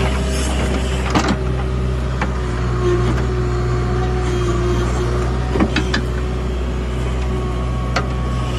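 JCB 3DX backhoe loader's diesel engine running steadily under working load with a steady whine, while the backhoe digs and swings; several sharp metallic knocks from the bucket and boom linkage break through it.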